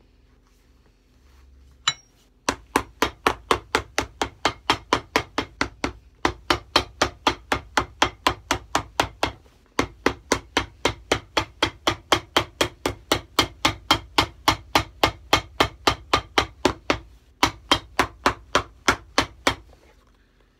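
Shoe hammer pounding a freshly glued leather sole onto a shoe to set the bond, steady sharp strikes about three a second with a few short pauses. A single knock comes just before the hammering starts.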